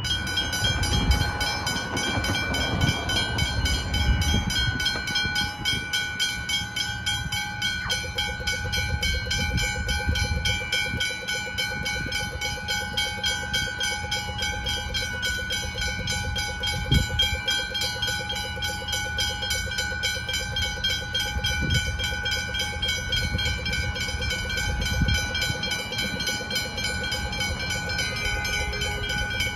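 Railway level-crossing warning bells ringing fast and continuously as the flashing lights come on, signalling an approaching train; a second, lower-pitched ringing joins about eight seconds in. Passing road traffic rumbles underneath, heaviest at the start.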